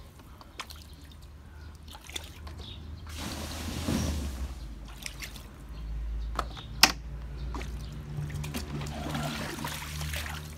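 Rainwater sloshing and pouring as plastic buckets are used to bail it off the vinyl floor of an empty above-ground pool, with light knocks of the buckets. A sharp clack about seven seconds in is the loudest sound.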